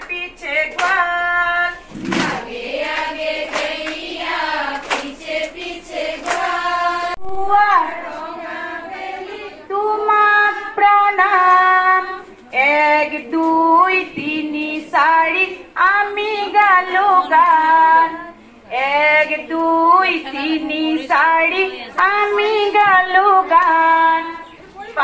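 A group of women singing a song together, one woman's voice leading, with hand clapping that is heaviest in the first few seconds.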